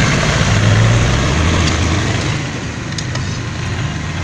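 A motor engine running steadily, a low hum under a broad hiss, a little louder in the first two seconds and then easing slightly.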